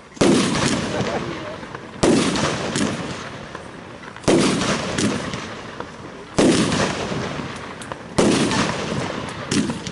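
Firework compound (Röder 'Let's Fetz' Verbundfeuerwerk) firing a sequence of shots: five loud bangs about two seconds apart, each trailing off in a fading crackle and rumble, with smaller cracks between them.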